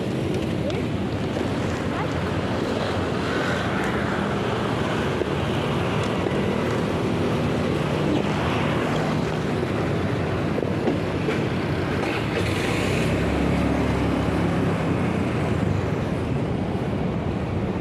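Steady noise of motor-vehicle engines and traffic, with wind buffeting the microphone, and a lower engine hum rising briefly near the end.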